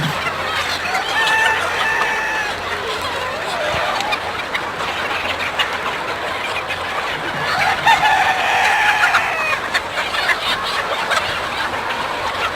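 Ayam kampung (Indonesian native chickens) clucking and calling together, with a longer call about eight seconds in that sounds like a rooster crowing.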